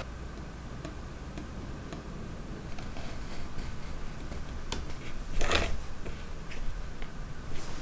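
Light hand-handling sounds on a plywood jig: scattered faint ticks as a mechanical pencil marks the protractor scale and a wing nut is handled, with one short, louder brushing noise about five and a half seconds in.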